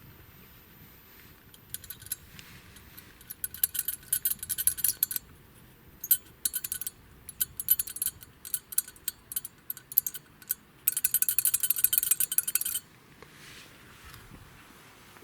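Metallic rattling from a Nissan Almera: irregular bursts of rapid, sharp clicking that come and go. Near the end it becomes a dense, continuous rattle for about two seconds, then stops suddenly.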